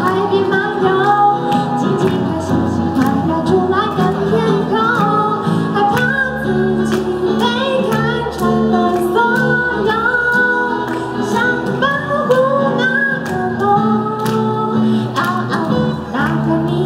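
A woman singing a pop song live into a microphone over amplified keyboard and a band, with a steady beat of cymbal or hi-hat taps.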